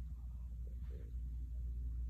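A low steady hum, with a faint soft sound about a second in.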